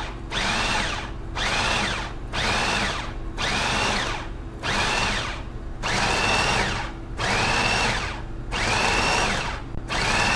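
Food processor pulsed over and over, about once a second: with each press the motor whirs up to a whine and winds back down as the blade cuts eggs into flour for pasta dough.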